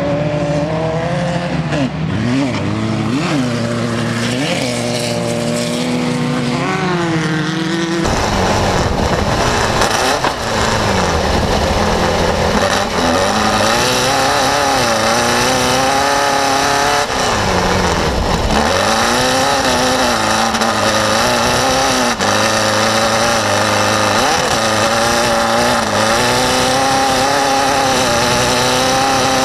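Racing buggy's engine revving up and down as it laps a dirt track, its pitch rising and falling with each throttle change. About eight seconds in it switches from trackside to inside the cockpit, where the engine is closer and mixed with wind and rattle.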